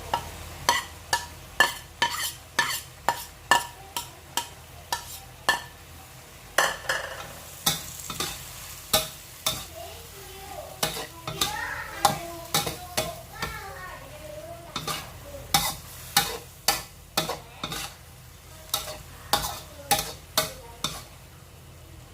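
Metal spatula striking and scraping a wok about twice a second, stirring seafood that sizzles as it stir-fries. The strikes pause briefly a few times.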